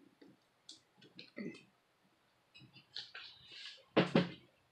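Faint scattered clicks and taps of fingers working a flat ribbon cable into its connector inside an open laptop chassis, with a louder brief sound about four seconds in.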